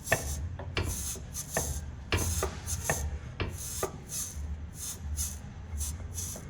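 Front lower control-arm bushing of a VW Gol G5 creaking as the control arm is rocked up and down by hand. It gives a short rasping creak about twice a second. The small front rubber bushing has come loose and is turning inside the control arm's housing instead of staying fixed, and that is the cause of the creak.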